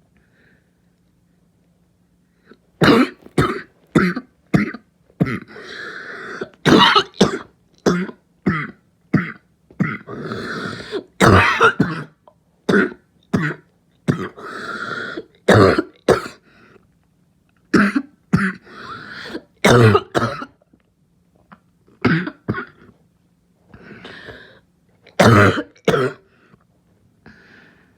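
A person's barking cough: many harsh, short coughs in irregular fits starting about three seconds in, with longer noisy breaths drawn between some of the fits.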